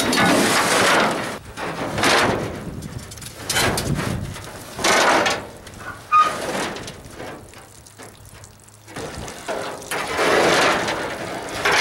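Pieces of a cut-open sheet-metal boat fuel tank scraping and clanging against a metal utility trailer as they are shoved aboard, in several separate bursts with a sharp bang about six seconds in.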